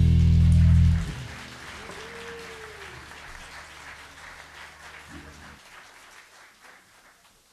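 A live band of piano, guitars, bass guitar and drum kit holds its final chord, which cuts off about a second in at the end of the song. Audience applause follows and fades away.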